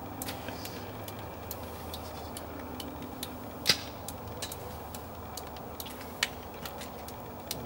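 Steady low outdoor background rumble with scattered faint clicks and knocks, one sharper knock about three and a half seconds in.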